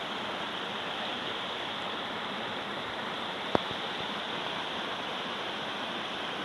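Steady rushing of flowing water, with one sharp click about three and a half seconds in.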